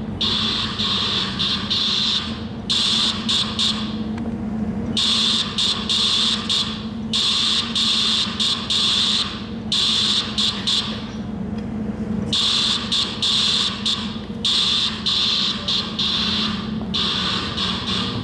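Morse code tones over a ship's public-address loudspeaker, sending the Titanic's CQD distress call, her call sign and her position: a high beeping tone keyed on and off in long dashes and short dots, over a steady low hum.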